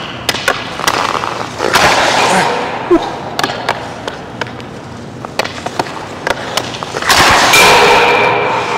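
Hockey stick blade clicking and knocking against pucks on the ice during stickhandling and shots, with skate blades scraping the ice. About seven seconds in there is a longer, louder scrape with a ringing tone that fades near the end.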